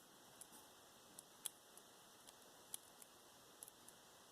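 Near silence, with a few faint, scattered small clicks of metal jewelry being handled.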